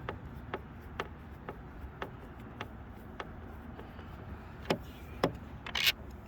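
Hand tool working out the third brake light's mounting screws on a pickup cab, with light clicks about twice a second. Near the end come a couple of louder knocks and a short scrape.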